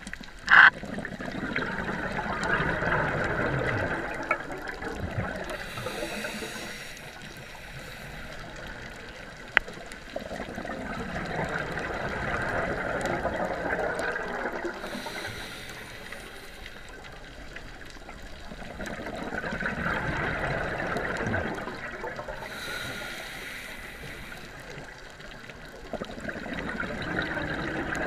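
Scuba diver breathing through a regulator: bubbling exhalations lasting several seconds, each followed by a shorter hiss of inhalation, three full breaths in a slow, even rhythm. A sharp click about half a second in is the loudest moment.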